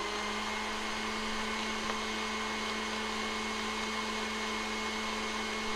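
KitchenAid tilt-head stand mixer running at a steady speed, its motor humming at one even pitch as the beater creams softened butter and sugar in the steel bowl.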